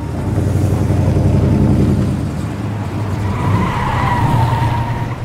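Black Dodge Challenger's engine running loud as the car pulls away, with its tyres squealing briefly about three seconds in.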